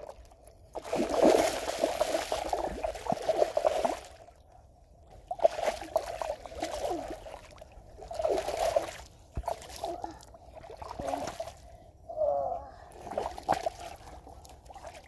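A hooked fish thrashing and splashing in shallow river water as it is hauled in on a line, in several bursts of splashing with short lulls between, the longest in the first few seconds.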